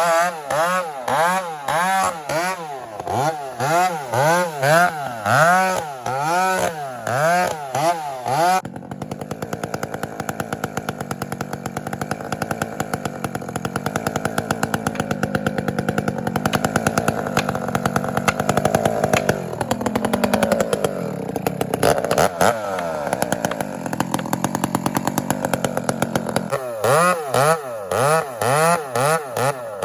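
Chainsaw engine revved up and down repeatedly, then held at high revs for a long steady stretch, its pitch dragging down for a while partway through. It goes back to short revs near the end. The long steady stretch is typical of the saw held in a cut, bogging under load when it sags.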